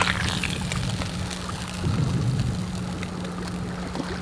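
A motor running steadily: a constant low hum with a rumble beneath it, and a few faint clicks over it.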